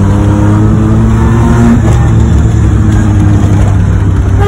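Modified Maruti 800's small three-cylinder petrol engine running through a loud aftermarket exhaust, with a deep steady drone as the car drives, heard from inside the cabin.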